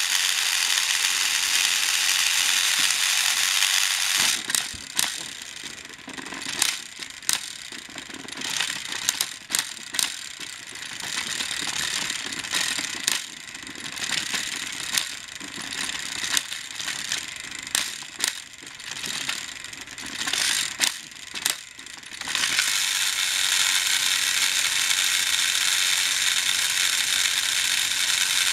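Battery-powered TrackMaster toy train motors and gearboxes whirring steadily. From about four seconds in the engines strain against each other on the plastic track, and the whir turns uneven with irregular clicks and clatters. About 22 seconds in a steady whir returns.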